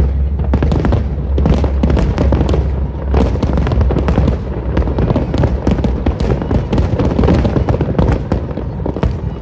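Fireworks going off in rapid succession: dense crackling and popping over a steady low rumble, easing a little near the end.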